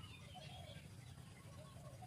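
Faint bird calls: short chirps and a few lower calls over a low steady hum.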